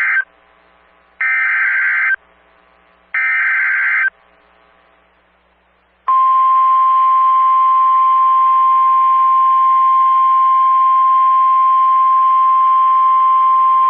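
Emergency Alert System SAME header data bursts: the end of one, then two more, each about a second long with a second's gap. About six seconds in, a steady single-pitch 1050 Hz National Weather Service warning alarm tone starts and holds loud, the tone that comes before a tornado warning is read.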